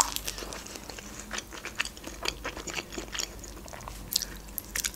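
A person biting into and chewing a fried breaded chicken wing, with many small crackling crunches and mouth clicks. A cluster of louder crunches comes near the end.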